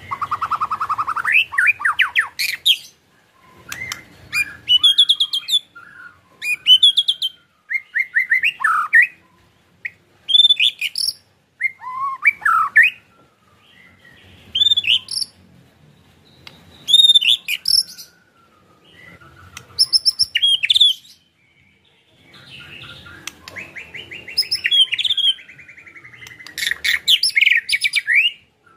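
White-rumped shama (murai batu) singing in loud bursts of whistled phrases, separated by short pauses, mixed with fast rattling chatter (ketrekan), with a fast trill at the start and a long rapid rattling run near the end.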